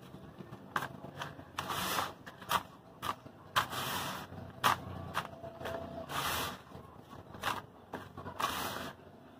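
Hands raking and sifting dry crumbled cement grit in a plastic tub. Four times, a gritty hiss sounds as a handful pours back down. Between the pours come sharp crunchy ticks as the fingers dig in and the grains snap.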